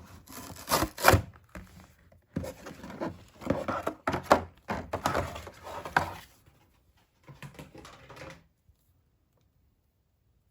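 Hands working on doll packaging: irregular rustling, tearing and knocking of cardboard and plastic, with the handling stopping about two thirds of the way through.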